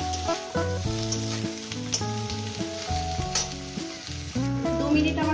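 Fish heads and chopped vegetables sizzling as they fry in oil in a kadai, stirred with a metal spatula that scrapes and clicks against the pan a few times. Background music with sustained notes plays over it.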